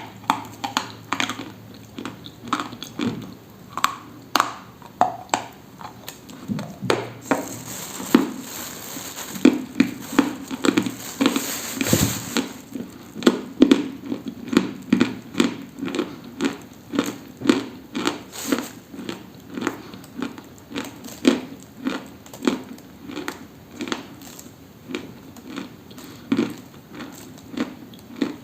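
Close-up biting and chewing of something dry and crunchy, in a steady run of crisp crunches about one to two a second.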